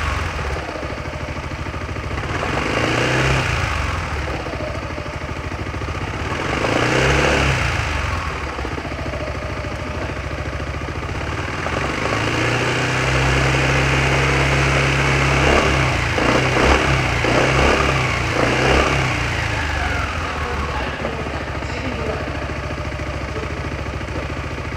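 Yamaha X-MAX 300 scooter's single-cylinder engine, 60,900 km old and freshly filled with Series Y 517S 10W-40 ester synthetic oil, idling and being revved by the throttle: two short revs, then a longer rev held for several seconds with a few quick blips, falling back to a steady idle near the end.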